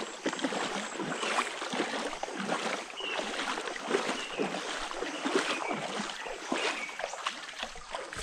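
Moving water with many small, irregular splashes.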